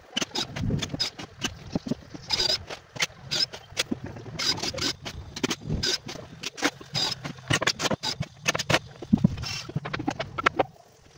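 Hammer driving nails into a plywood cabinet carcass: a quick, uneven series of sharp knocks, easing off near the end.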